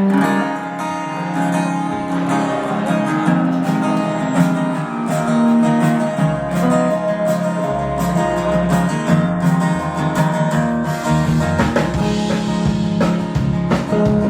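Acoustic guitar playing a country song's instrumental intro, strummed chords with low bass notes joining about two seconds in.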